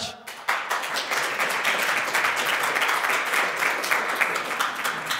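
Audience applauding, a steady patter of many hands that starts about half a second in.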